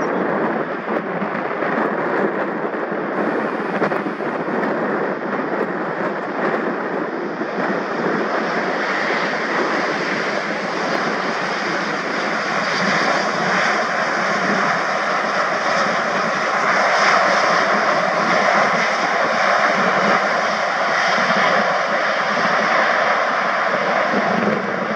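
The Rolls-Royce Trent XWB jet engines of an Airbus A350-900 run steadily as the airliner rolls slowly past along the runway, a dense jet rumble and hiss. The sound grows louder about a third of the way in as the aircraft draws broadside, and a steady whine comes in just after the middle.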